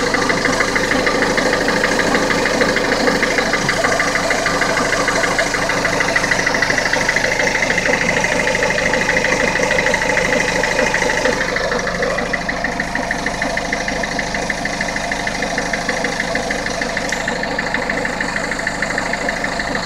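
Peugeot 407 HDi diesel engine running with a steady high-pitched tone over rapid ticking, slightly quieter about twelve seconds in. It is an abnormal noise the owner cannot place, heard after a garage timing belt change at 87,000 km.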